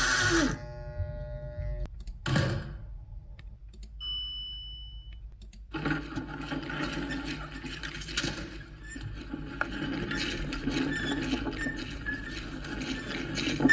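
A run of separate film sound effects: a short electric hum, a brief noisy burst, a high electronic beep lasting about a second, then a long stretch of busy mechanical whirring and clicking.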